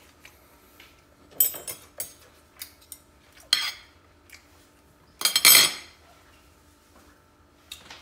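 Metal fork scraping and clinking against a plate of rice in a handful of separate strokes. The longest and loudest scrape comes about five seconds in.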